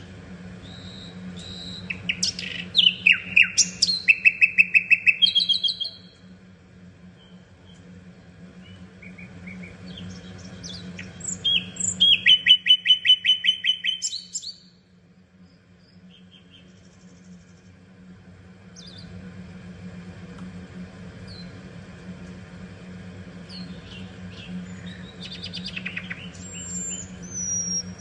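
Common nightingale singing: phrases of short whistles and rapid repeated notes, loudest in two trilled bursts about two and twelve seconds in, with quieter phrases between and a new phrase building near the end. A low steady hum lies underneath.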